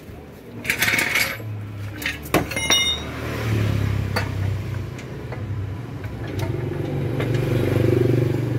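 Sharp metallic clinks and clicks as parts are handled at a fuel-injected scooter's idle air control valve. From about three seconds in, a small engine hums steadily and grows louder near the end.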